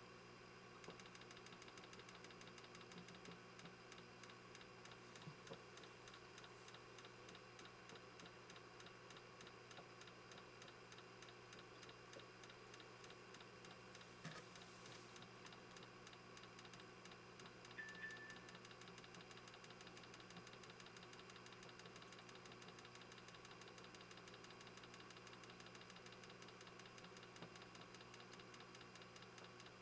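Faint, rapid, evenly spaced ticking of CO2 gas bubbling through the regulator's bubble counter as the needle valve is opened, starting about a second in, over a low steady electrical hum.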